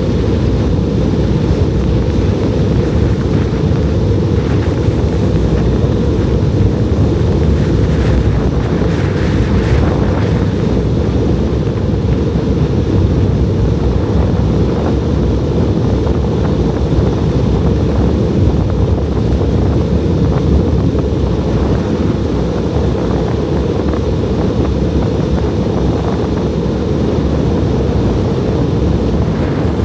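Strong blizzard wind buffeting the microphone: a loud, steady low rumble.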